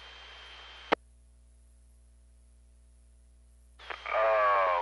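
FM repeater channel on a two-metre receiver: the open channel's hiss with a steady high tone, cut off about a second in by a sharp squelch click. Then only a low mains hum, until near the end the squelch opens again with a rush of hiss and a voice starts over the radio.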